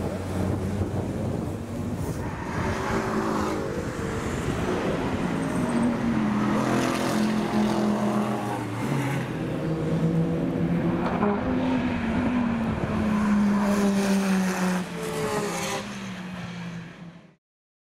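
Race car engines at full speed on the circuit, pitch climbing through the revs and dropping at each gear change as cars pass. The sound cuts off abruptly near the end.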